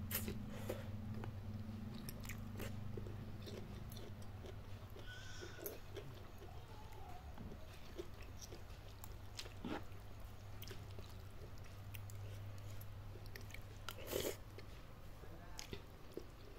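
Close-miked chewing and biting of spicy instant noodles with bok choy and vegetables: soft wet mouth sounds and scattered small crunchy clicks, with two louder sharp clicks near the start and near the end. A low steady hum runs underneath.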